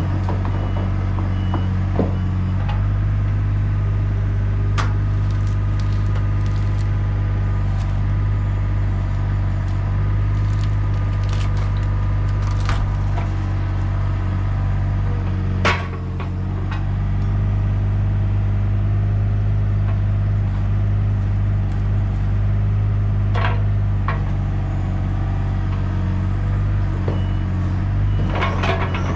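An engine running steadily at a constant speed, with scattered sharp knocks and clanks over it, the loudest about two-thirds of the way through.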